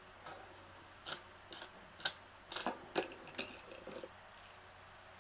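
Irregular light clicks and taps of small hard parts being handled, several close together in the middle, over a faint steady high-pitched tone.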